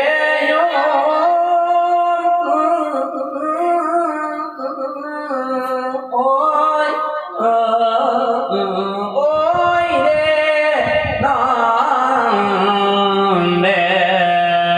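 A voice chanting a Thai devotional verse in a melodic, sung style, with long held notes that glide up and down.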